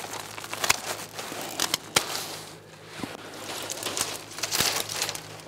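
Hand pruning shears snipping through dormant grapevine canes: a few sharp clicks, the loudest about two seconds in and again past four and a half seconds, with the rustle of branches being moved between cuts.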